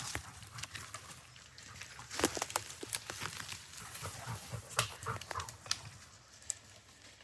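Footsteps of people and dogs walking through leaf litter and twigs, an irregular run of crunches and small clicks with a few sharper snaps.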